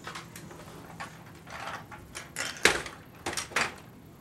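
A run of sharp knocks and clatters, the loudest about two and a half seconds in, with a quick cluster of three more near the end.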